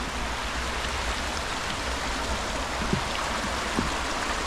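Fast-flowing woodland river rushing steadily over rocks, with a couple of faint knocks about three and four seconds in.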